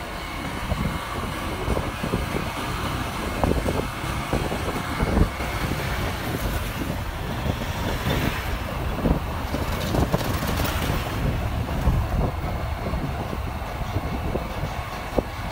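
Steady engine and road noise from riding through street traffic, with wind buffeting the microphone. A large vehicle passes close by about eight seconds in, and the noise swells for a few seconds.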